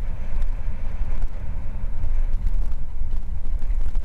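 Heavy wind noise on a helmet-mounted camera microphone during a fast downhill mountain-bike descent, with the tyres rolling over dirt and loose rock and a few small knocks and rattles from the bike.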